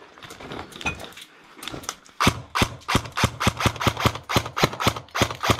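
Airsoft gunfire: after a quieter couple of seconds, a fast, even string of sharp shots, about five a second.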